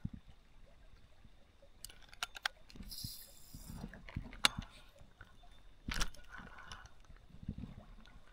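Faint handling noises while fishing: scattered small clicks and taps, a brief hiss about three seconds in, a sharp click about a second later and a knock about six seconds in.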